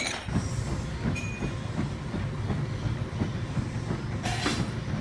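Steady low rumble of gym room noise, with a short burst of noise about four and a half seconds in.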